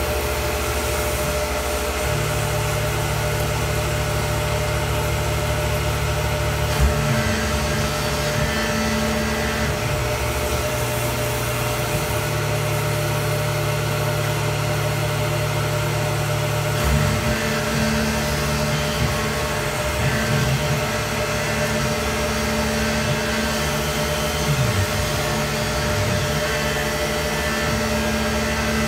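Tormach 1100 CNC mill's spindle running and end mill cutting metal under flood coolant: a steady machine noise with a low hum that shifts in pitch and level every few seconds.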